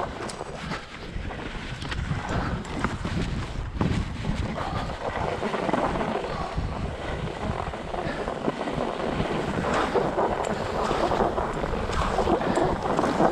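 Skis hissing and scraping as they glide over tracked, packed snow, with wind rushing over the microphone; the snow hiss grows stronger about halfway through.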